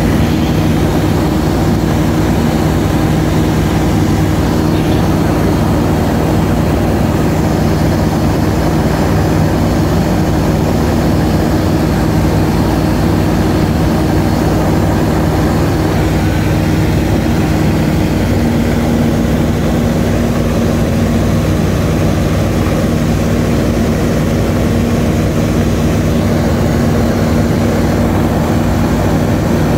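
Light aircraft's engine and propeller droning steadily, heard from inside the cabin along with wind noise, loud enough to drown out speech. The engine note shifts slightly about 16 to 18 seconds in.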